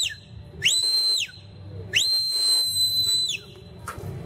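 Whistled herding commands to a working border collie. Two clear, high whistle blasts, a short one and then a longer one, each swooping up to a steady note and dropping off at the end, with the tail of a previous blast right at the start.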